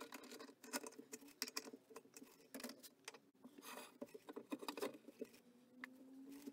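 Hands turning a yew bowl blank by hand on a stopped wood lathe and setting the tool rest: a run of light knocks, clicks and rubbing over a faint steady hum.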